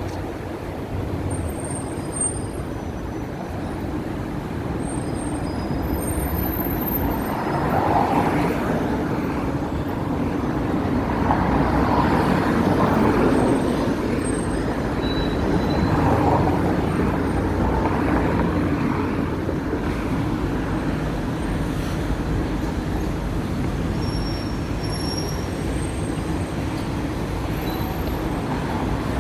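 Hong Kong double-decker electric tram running through city streets among road traffic: a steady rumble that swells louder a few times in the middle.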